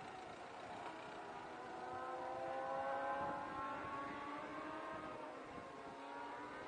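Dacia Duster's engine pulling as the SUV drives past, its note rising over a few seconds and loudest about three seconds in, then fading as the car moves away.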